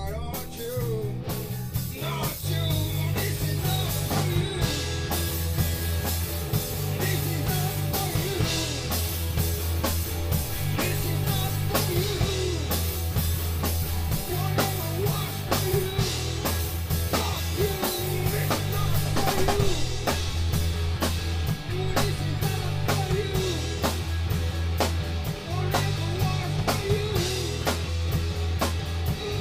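Rock band jamming live: drum kit, electric bass and two amplified electric guitars playing together, with the drums and bass kicking in right at the start.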